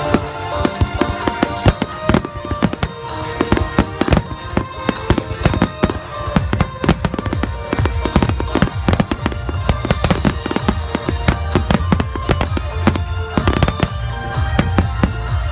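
A dense barrage of aerial firework shells bursting in quick, irregular succession, many sharp bangs and crackles overlapping, with music playing underneath. The bangs are fewer about a second in and come thickest through the middle.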